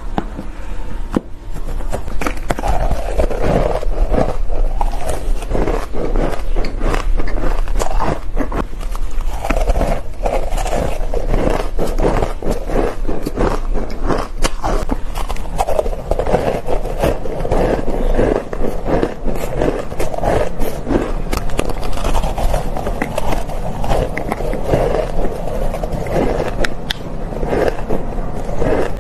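Ice being bitten and crunched: a dense, continuous run of sharp cracks and crackles that does not let up.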